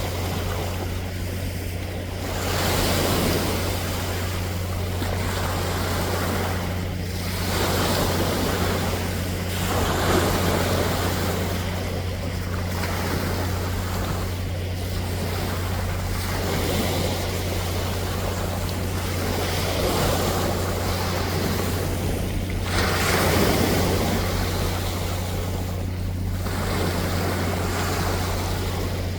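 Sea waves breaking and washing in, the rushing surging and ebbing every few seconds, over a steady low hum.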